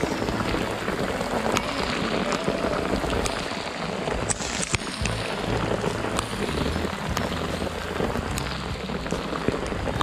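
Heavy rain pelting the sea surface, a dense steady hiss with scattered sharper drop ticks close by.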